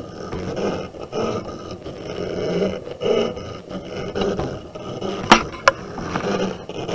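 Brother ScanNCut SDX225 cutting machine cutting fabric: its motors whir, swelling and fading about every half second to second as the cutting head and mat move. Two sharp clicks come a little after five seconds in.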